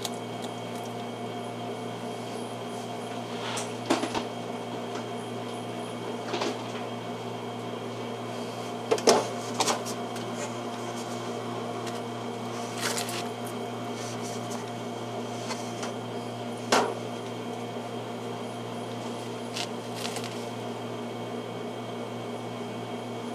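Steady electrical hum with several even tones, broken by about seven short, sharp clicks and knocks scattered through it.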